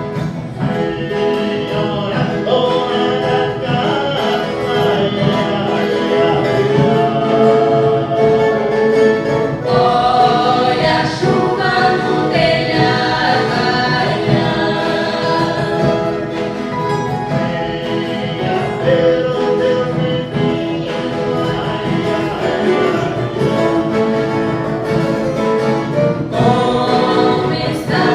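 A viola caipira ensemble, the Brazilian ten-string guitars plucked together, accompanying a group of voices singing a Christmas song.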